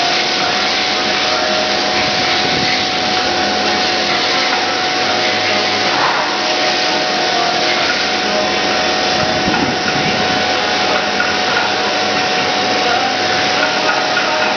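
Machining equipment running with a steady, loud whirring hiss and a few steady tones.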